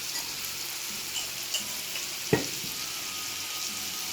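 Food frying in a pan with sauces just stirred in, sizzling steadily while it is stirred. There are a few light ticks and one sharp knock a little over two seconds in.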